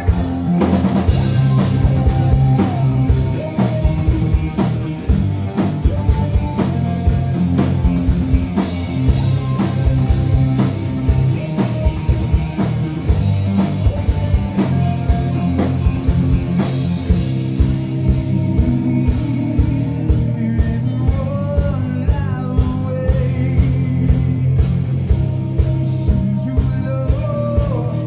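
Live rock band playing loudly: drum kit keeping a steady beat under bass and electric guitar, heard from within the crowd.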